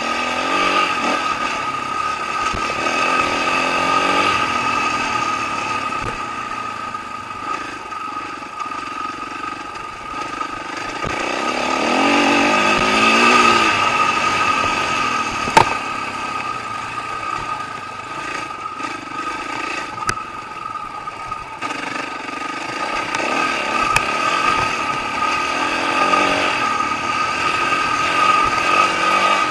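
Dirt bike engine running under way, its pitch rising and falling with the throttle, loudest about halfway through. There is a single sharp click shortly after the loudest part.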